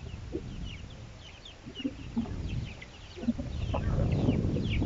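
A flock of young chicks peeping: many short, high, falling peeps, overlapping. In the last second or so a low rumbling noise grows under them.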